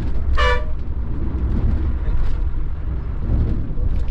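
Volvo B11R multi-axle coach on the move: a steady low rumble of its diesel engine and road noise, with a short horn honk about half a second in.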